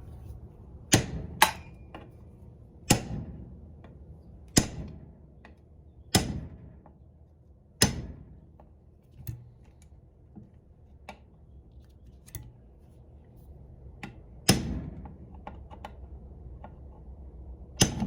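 Hammer striking a nail set held against the tips of the mirror hinge bracket's retaining pins, tapping them flat: about six sharp blows one to two seconds apart, then a pause of several seconds before another blow.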